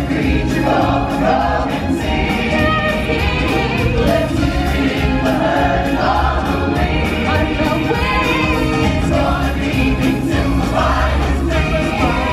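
Loud stage-show music: a choir of voices singing over a full musical accompaniment.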